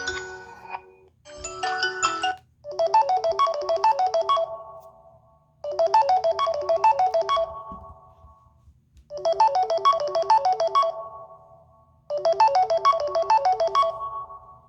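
Samsung Galaxy A40 stock ringtone: a short phrase of quick, bright notes over a high shimmer, played four times with short pauses between. It starts after the tail of the previous ringtone and a brief snippet of another.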